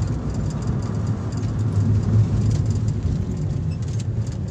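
A car driving on a highway, heard from inside the cabin: a steady low rumble of engine and road noise.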